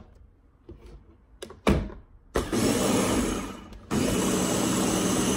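A clunk, then a Ninja blender runs in two bursts mixing pancake batter: a short one of about a second and a half, a brief break, then a longer, steady run.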